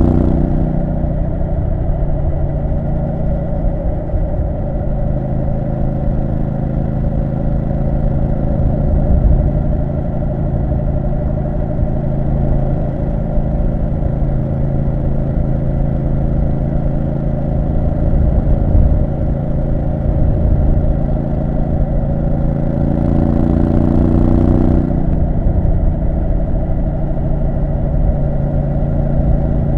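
Triumph Street Scrambler 900's 900 cc parallel-twin engine running steadily under way. Near the end its pitch climbs for about two seconds, then drops suddenly, as with an upshift.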